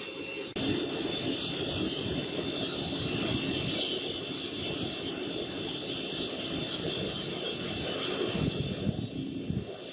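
A power tool running steadily under load, with a faint steady whine over a coarse grinding noise. There is an abrupt cut about half a second in.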